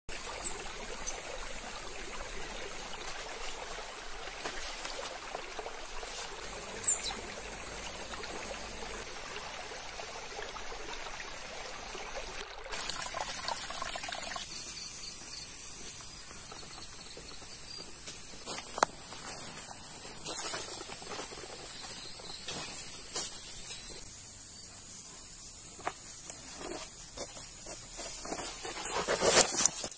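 Insects, cicada- or cricket-like, shrilling steadily on one high note. In the first half a small stream trickles over rocks; in the second half there are scattered rustles and snaps in dry brush, ending in a louder rustle.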